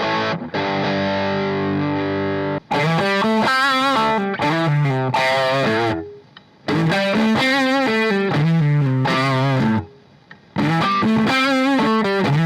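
PRS S2 Custom 24 electric guitar played through an amplifier. A held chord rings for about two and a half seconds, then come three short lead phrases of single notes with vibrato, each followed by a brief pause.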